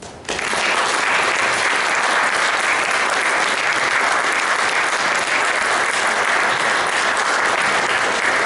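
Audience applauding, breaking out suddenly just after the start and holding steady.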